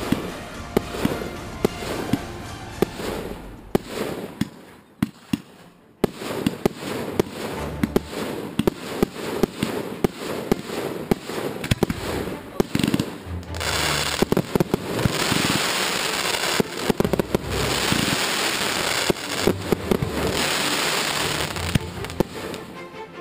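Fireworks display: a rapid series of bangs and crackling bursts, easing off briefly about five seconds in. From a little past the middle comes a dense, loud stretch of crackling hiss lasting about seven seconds, with bangs still going through it.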